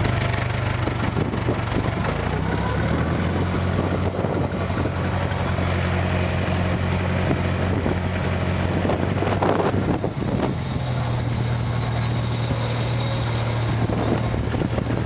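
International 474 tractor's diesel engine running steadily under load, pulling drag chain harrows, heard from inside the cab. A few knocks and rattles come through about nine to ten seconds in.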